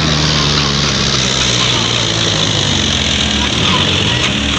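Compact tractor's diesel engine running at a steady speed, heard close up.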